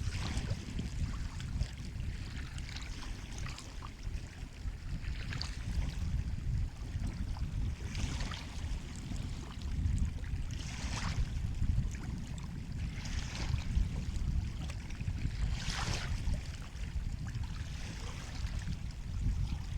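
Ocean waves: a steady low rumble of surf with a short splash of water every few seconds.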